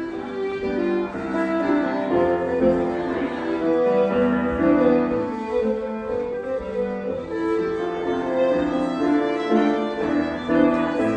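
Fiddle and piano playing a lively Scottish country dance tune together, a bowed melody over piano accompaniment, continuous throughout.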